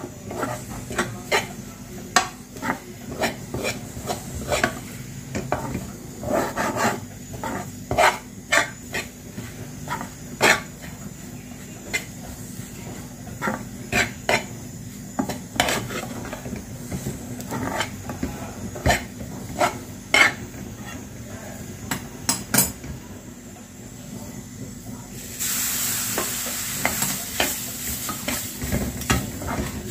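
A steel ladle stirring and scraping dry, crumbly gram-flour zunka around a metal pan, with repeated short scrapes and clinks against the metal. Near the end, a few seconds of loud sizzling hiss come from the pan.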